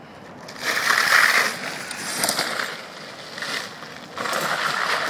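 Battery-electric go-kart with chain drive accelerating away over damp asphalt: a rushing tyre and drive noise with no engine note, swelling about a second in, easing, and swelling again near the end.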